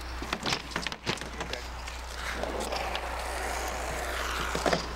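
A BMX bike landing and rattling, heard as a quick run of sharp knocks and clatter in the first second and a half. Indistinct voices and a steady low camcorder hum follow.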